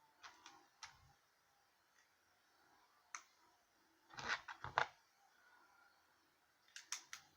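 Small plastic Lego bricks clicking together and being pressed onto studs: scattered light clicks, with a louder cluster of clicks and knocks about four to five seconds in and another few near the end.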